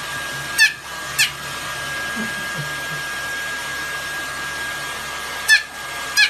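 A white Pomeranian puppy giving four short, high yips, a pair about half a second apart near the start and another pair near the end, over the steady whoosh and thin whine of a running hair dryer.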